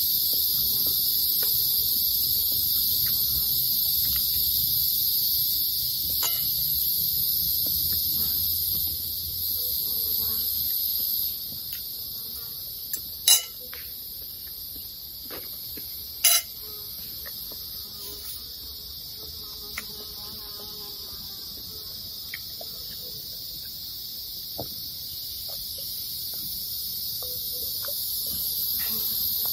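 Steady high-pitched drone of a forest insect chorus, which drops in level about 11 seconds in and swells back near the end. Over it, light clicks of a fork on a plate, with two sharp clinks about 13 and 16 seconds in.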